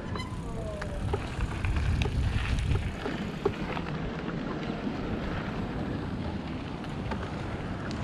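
Electric mountain bike rolling over a rough gravel track: a wind rumble on the action camera's microphone and tyre noise, with scattered small clicks and rattles from the bike. The low rumble is heaviest for the first three seconds, then eases.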